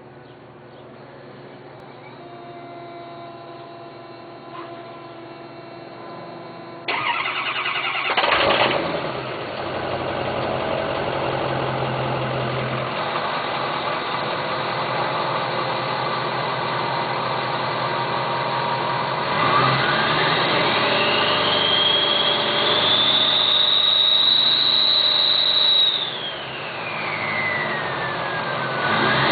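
Ford 6.0L Power Stroke V8 turbo-diesel starting suddenly about seven seconds in after a quiet stretch, with a brief flare before settling to a steady idle. About midway it is revved and held, and the MTW hybrid turbocharger's whistle rises high and holds, then falls away as the revs drop near the end and starts rising again.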